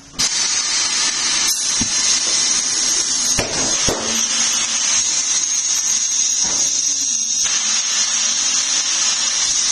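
A power tool starts abruptly and runs steadily with a high, hissing whine, the kind used in a tyre change.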